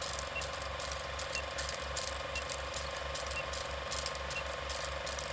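Film projector running: a steady mechanical clatter with a low flutter about four times a second, scattered crackle and a steady hum, plus a faint short high beep once a second.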